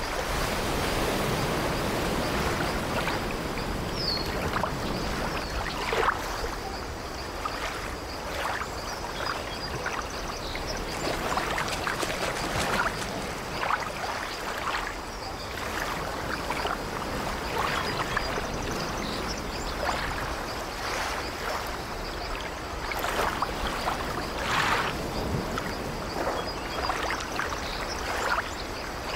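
Ocean surf: small waves breaking and washing in, a steady wash with many short splashes through it.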